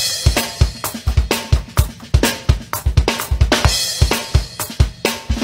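Electronic drum kit playing a fast beat with fills: bass drum, snare and cymbal strokes in a steady, dense rhythm. A last cymbal hit near the end rings out and fades.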